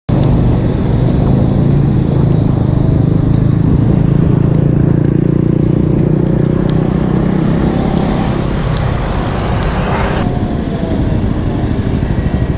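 City street traffic heard from a moving bicycle: nearby motor vehicle engines running with a steady low hum, over a hissing rush that cuts off suddenly about ten seconds in.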